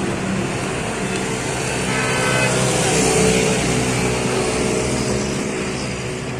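A motor vehicle running close by, swelling to its loudest about three seconds in and then fading as it passes, with a brief high tone about two seconds in.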